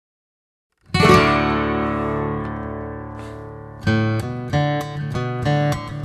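Silence, then acoustic guitar music about a second in: one strummed chord left to ring and fade, followed by a run of picked notes from about four seconds in.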